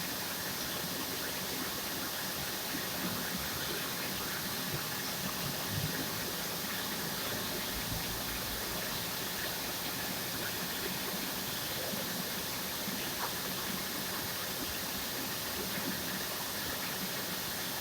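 Circular knitting machine running: a steady rushing hiss with faint scattered ticks.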